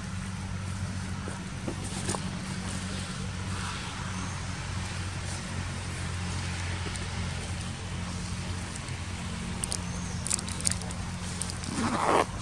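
A low, steady engine hum under a steady hiss of outdoor ambience, with a short, louder noisy sound near the end.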